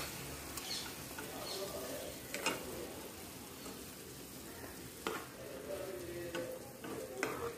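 Spiced chicken pieces simmering in their cooking liquid in a nonstick pan, a steady bubbling hiss, while a steel spoon scoops them out. The spoon clinks sharply a few times, roughly every two and a half seconds.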